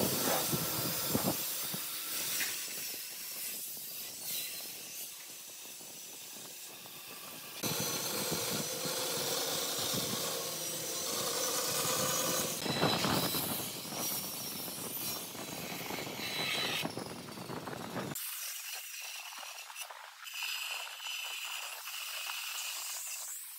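Woodworking tool noise on wood: steady hissing and scraping, in several sections that change abruptly about 1.5, 7.5 and 18 seconds in. The last section is thin, with no low end.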